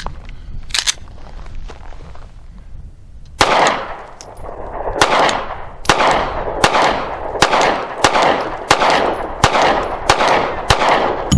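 A SIG P365 9mm pistol firing Federal Syntech 130-grain polymer-coated rounds: one shot, a short pause, then a steady string of about ten shots, roughly one every 0.7 seconds, each with a short echo. The unbroken string shows the pistol cycling this carbine-optimised ammunition without a stoppage.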